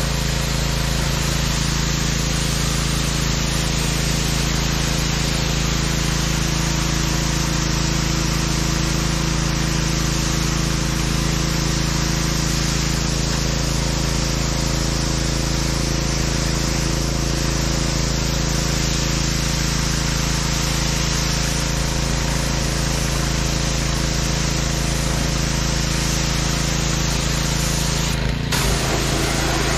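Gas-engine pressure washer running steadily while its wand sprays water against a truck's cab, the engine's hum under the hiss of the spray; a brief break comes near the end.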